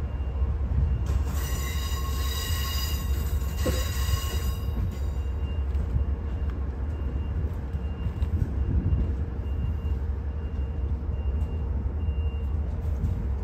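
Railway cars' wheels squealing on the rails as they roll away. A loud, high squeal runs from about one to five seconds in, with fainter squeals coming and going after it, over a steady low rumble.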